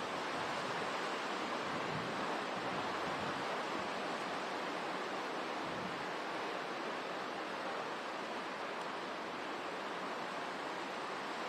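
Hurricane wind and driving rain: a steady, unbroken rush of noise that neither builds nor drops.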